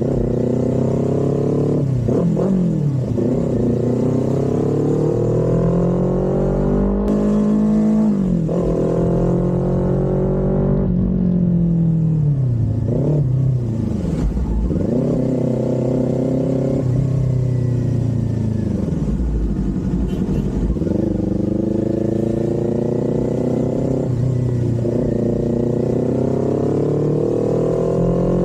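Kawasaki Z400's parallel-twin engine under way, its pitch climbing under throttle and dropping back again and again as the rider accelerates, shifts gears and rolls off.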